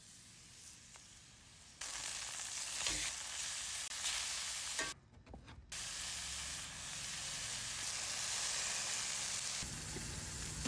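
Blackening-seasoned poultry breasts sizzling in hot oil in a cast iron skillet: a steady frying hiss that starts about two seconds in and breaks off briefly around five seconds in before carrying on.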